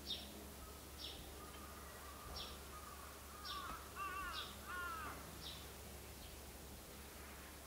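Birds calling: short high chirps roughly once a second, and three rising-and-falling calls in quick succession about four seconds in, over a low steady hum.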